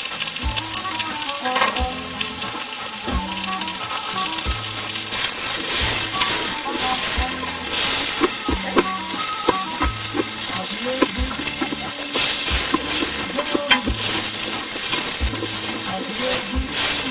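Food sizzling as it fries in a pan, the hiss growing louder about five seconds in, with scattered crackles. Background music with a repeating bass line plays underneath.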